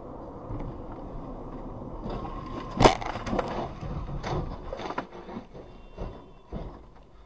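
Car crash heard from a following car's dashcam: steady road noise, then a loud bang about three seconds in as a car ahead strikes the highway barrier and overturns, followed by a quick run of clattering knocks and scrapes as it tumbles and debris scatters, dying away a couple of seconds later.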